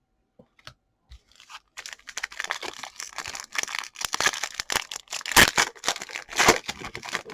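Trading-card pack wrapper being torn open and crinkled: a few light clicks first, then about five seconds of continuous crackling with two louder crackles near the end.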